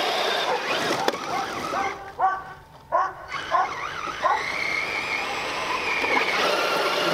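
Brushless electric motors of two 6S Traxxas RC monster trucks, a Summit and an X-Maxx, whining as the two trucks are throttled against each other in a tug of war. A hissing rush in the first two seconds gives way to a run of short whines that rise and fall as the throttle is blipped. One long high whine then rises, holds and dies away near the end.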